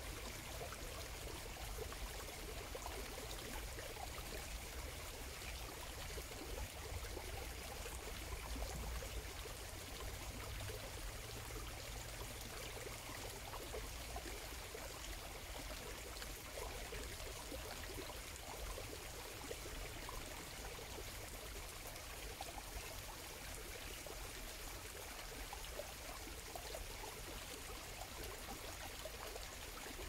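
Steady trickle of running water.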